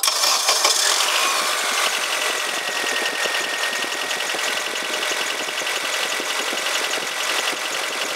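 Honda four-cylinder engine idling with a fast, even ticking chatter from the top end, louder for about the first second. The ticking is valve lash gone out of adjustment: the rocker arms have play on a high-mileage engine.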